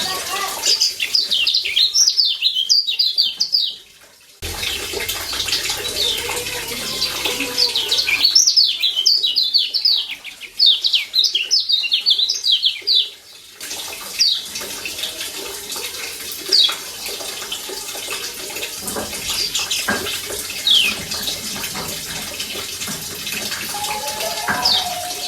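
Kecial kuning (Lombok yellow white-eye) calling in two runs of rapid, high chirps of about three and five seconds, then single chirps every few seconds. A steady hiss runs underneath.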